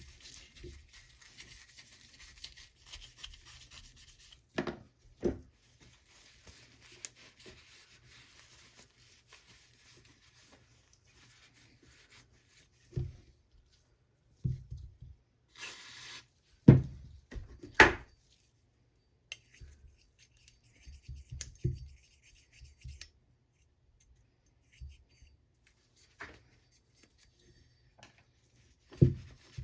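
A brush scrubbing carbon off an AR-15 bolt carrier, in stretches of scratchy brushing. Several sharp clacks of metal parts are knocked or set down between them, the loudest about eighteen seconds in.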